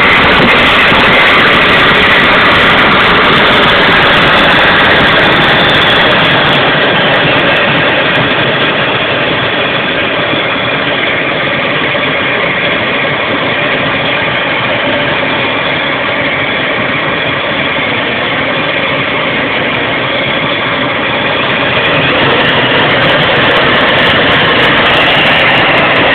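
Homemade gas turbine engine on a pocket bike running steadily with a loud rushing whine. It eases down a little about eight seconds in and picks back up near the end.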